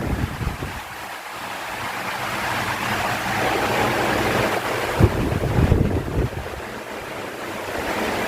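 Electric fan running: a steady rush of air with a faint motor hum, the airflow buffeting the microphone in low thumps. It grows louder and quieter in turns, dipping about a second in and again near the end.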